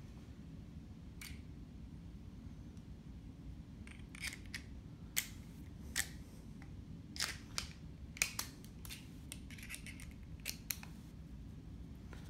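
Hand tools and small carburetor parts being handled on a table: a faint click about a second in, then a dozen or so sharp clicks and clinks scattered through the second half, over a steady low hum.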